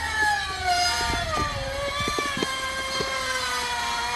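An engine whining steadily at a fairly high pitch, which falls over the first second or so and then holds level. Light knocks from chickens pecking at food in a plastic tub sound through it.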